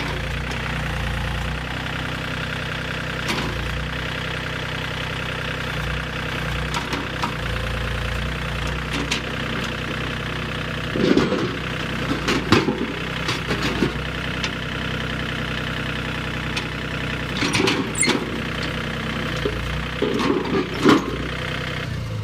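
Tractor engine idling steadily, with a few loud knocks and clanks around the middle and again near the end.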